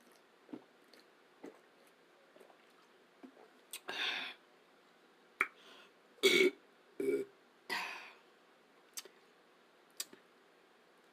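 A person burping several times in quick succession about halfway through, the loudest burp a little after the middle, with soft mouth clicks before and after.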